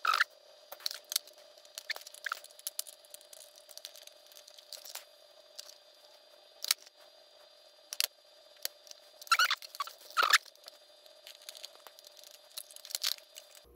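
Soldering iron tip working molten plastic over a steel mesh on a plastic box hinge: scattered small clicks, taps and brief squeaks of the hot tip scraping and pressing the plastic, over a faint steady hum. The loudest cluster comes about two-thirds of the way through.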